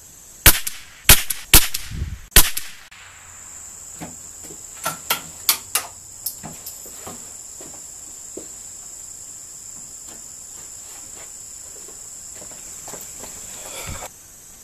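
Four loud, sharp rifle shots in under two seconds, then a handful of fainter cracks. Behind them a steady high-pitched insect buzz that stops suddenly near the end.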